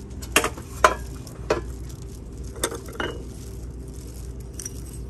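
Light knocks and clinks of kitchenware being handled on a store shelf, about five in the first three seconds, over a steady low hum.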